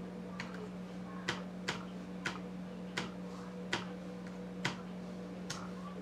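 Slow, one-at-a-time key presses on a compact Nexxtech Bluetooth keyboard: about eight sharp plastic clicks at uneven intervals, over a steady low hum.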